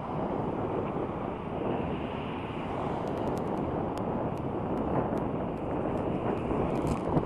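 Wind rumbling on the microphone over steady road traffic noise, with faint, irregular ticks from about halfway through.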